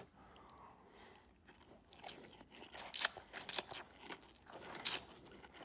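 Close-miked chewing and mouth sounds of someone eating tuna pasta, with a run of sharp wet clicks and smacks about halfway through.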